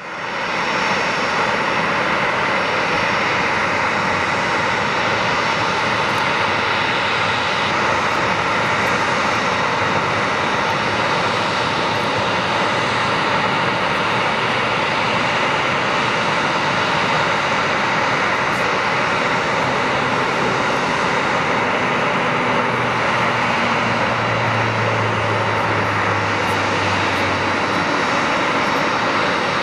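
Boeing 737-300's CFM56 jet engines running at idle: a steady rush with a faint high whine. A low hum swells for a few seconds near the end.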